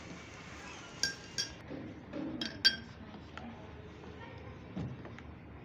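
A metal spoon clinking against glass tumblers as a thick mashed-banana milkshake is spooned in: a few ringing clinks, the loudest about two and a half seconds in.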